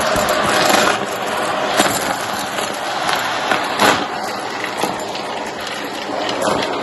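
Shark vacuum cleaner running steadily while sucking up pieces of cardboard, with several sharp clicks and rattles as bits are pulled in.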